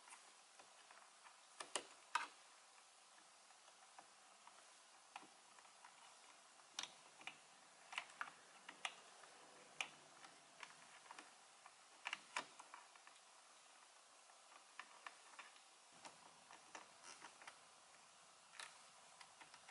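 Irregular small clicks and taps of a Torx screwdriver and the plastic and metal parts of an aftermarket paddle shifter as a long screw is driven to fix it behind the steering wheel, some clicks coming in quick pairs.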